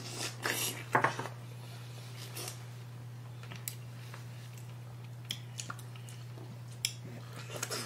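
Close-up eating sounds of people biting into large, juicy strawberries topped with whipped cream, loudest in the first second, followed by a few sharp clicks.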